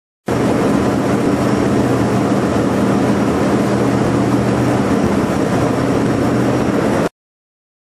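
Motor yacht under way at speed: a steady engine drone with the rush of the churning wake. It starts suddenly just after the opening and cuts off suddenly near the end.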